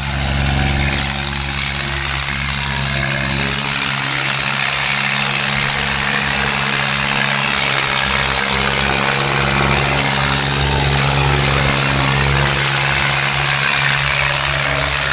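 Tractor engines idling steadily at an even pitch, over a constant background rush of noise.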